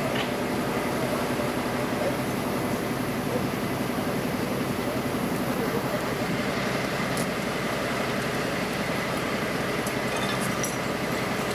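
Fire engine running with a steady, even drone.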